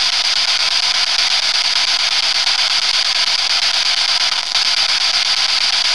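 Spirit box sweeping radio frequencies, giving a loud, steady static hiss with a brief dip about four and a half seconds in.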